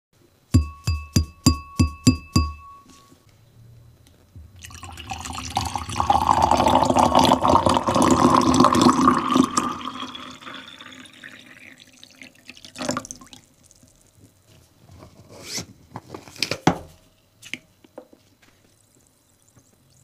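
An empty stemmed wine glass tapped about eight times in quick succession, each tap ringing with a clear pitch. Then water is poured into it for about five seconds, followed by a few scattered clinks and knocks against the glass.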